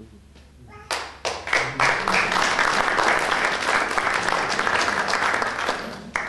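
Audience applauding: a few separate claps about a second in build quickly into steady applause, which thins out to scattered claps near the end.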